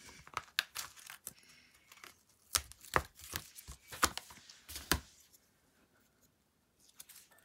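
A red rubber stamp sheet and its clear plastic stamp case being handled: a run of crinkling rustles and sharp plastic clicks that stops about five seconds in.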